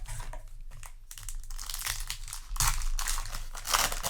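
Yu-Gi-Oh! booster pack foil wrapper and trading cards being handled, crinkling in several rustling bursts, loudest in the second half.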